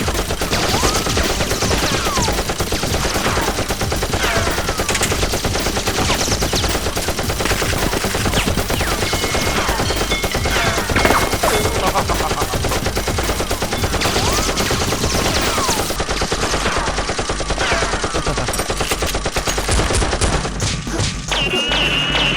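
Sustained rapid gunfire, many shots a second without a break, with several short falling whines scattered among the shots.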